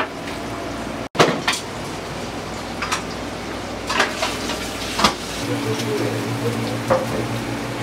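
Restaurant kitchen clatter: dishes and utensils clink now and then over a steady hiss. About two-thirds of the way in, a low steady hum joins.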